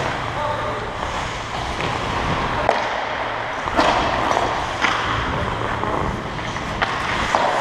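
Ice hockey skates gliding and scraping on rink ice in a steady rush of noise, with five sharp clacks scattered through.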